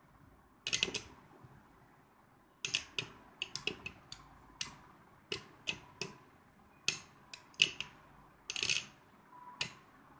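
Two Metal Fight Beyblade tops spinning in a cardboard stadium, knocking together with sharp clicks and clacks at irregular intervals, roughly fifteen in all, over a faint spinning hum.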